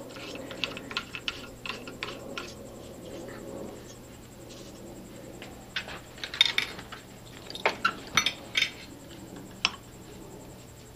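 Light metallic ticks as a brass thermal fan switch is turned by hand into an aluminium radiator hose adapter held in a vise, then a cluster of sharper metal clicks and clinks from about six seconds in as an adjustable wrench is set onto the switch.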